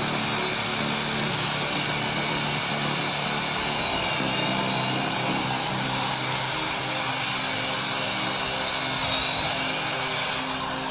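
A large machine running steadily at speed, with a loud, even high-pitched hiss and a faint wavering whine, fading out just after the end. Background music plays underneath.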